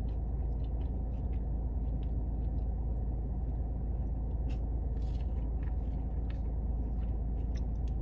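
Steady low rumble inside a parked car's cabin, with a few faint clicks and mouth sounds from eating ice cream with a plastic spoon.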